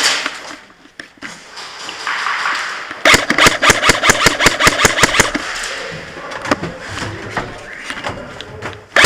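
Airsoft electric rifle firing on full auto: a rapid burst of about ten shots a second starting about three seconds in, then scattered shots, and another burst beginning near the end.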